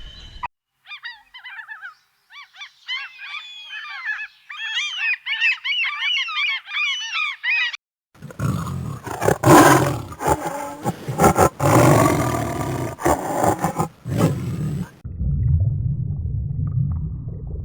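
A series of animal calls: several seconds of dense, rapid high-pitched chirps, then a loud roar lasting about seven seconds, then a low rumble near the end.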